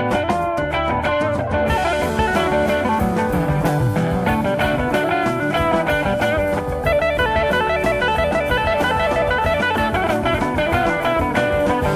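Instrumental passage of a gospel song: a band led by guitar, with drums keeping a steady beat.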